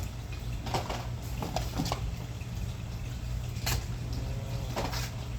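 Packaging of a boxed die-cast toy car being handled and opened: scattered clicks and crackles of cardboard and plastic, a few seconds apart, over a steady low hum.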